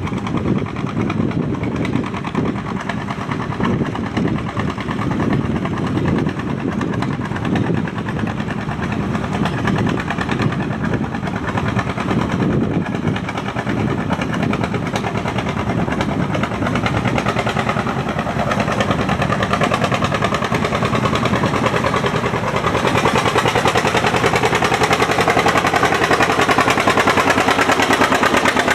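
Antique farm tractor engine running with a rapid, rattling firing beat, growing louder and higher in pitch about two-thirds of the way through.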